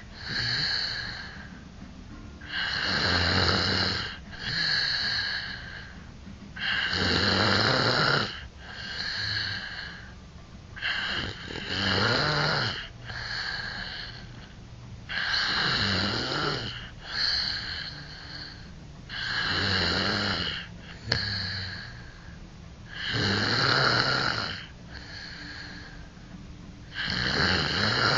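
A person snoring heavily in a steady rhythm: each cycle is a long loud snore followed by a shorter, quieter one, repeating about every four seconds.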